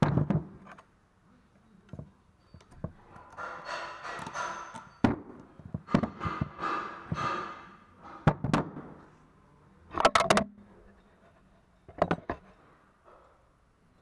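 Metal knocks and clanks of a brake caliper and a caliper press tool being handled on a workbench, with two stretches of scraping in the middle and a few sharp clanks near the end.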